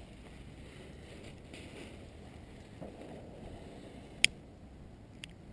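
Paper sky lantern rustling as it is handled, then sharp clicks of a lighter being struck to light the lantern's fuel cell: once about four seconds in and twice more near the end.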